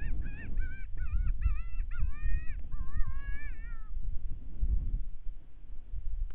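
Electronic predator caller playing an animal distress call: a quick run of short, wavering high-pitched cries that stops about four seconds in, over a steady low rumble.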